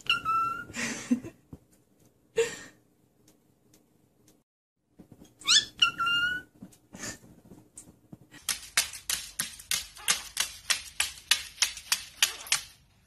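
A cockatiel gives two whistled calls about five seconds apart, each a quick rising chirp that runs into a held note, with newspaper rustling around it. Later comes a rapid, even run of sharp taps, about four or five a second.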